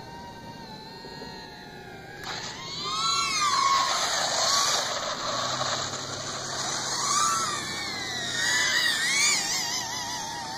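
Electric motors of radio-controlled aircraft whining steadily. About two seconds in, the sound jumps louder into a rushing noise, with several motor whines rising and falling in pitch as the throttle changes.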